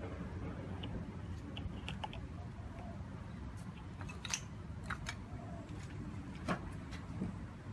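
A few light clicks and knocks as small paint cans and caps are handled and set down on a stand, the sharpest knocks about halfway through and near the end, over a steady low background rumble.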